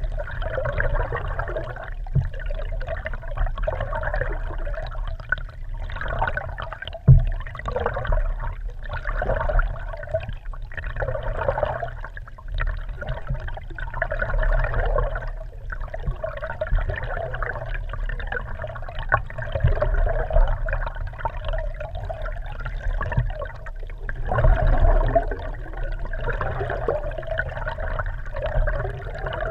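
Water rushing and gurgling around an underwater camera housing mounted under a moving kayak, muffled and surging unevenly. A single dull knock sounds about seven seconds in.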